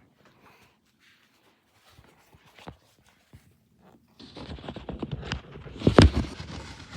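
Handling noise from a tablet being moved and propped up: a few faint clicks, then from about four seconds in loud rustling and knocking against its microphone, with one hard knock near the end.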